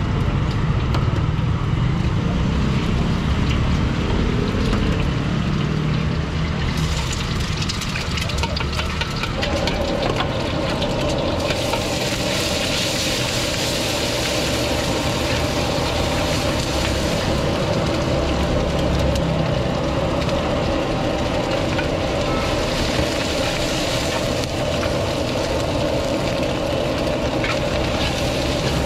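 A wok over a gas burner with a low, steady roar. About seven seconds in, food goes into the hot oil and a loud sizzle starts, and the frying continues with a metal ladle scraping and knocking against the wok as egg and rice are stir-fried.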